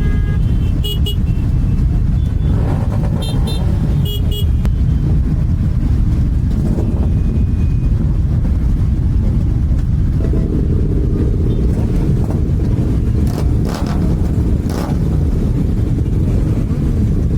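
A crowd of motorcycle engines running together at idle in a steady, loud rumble, with a few short horn toots in the first few seconds.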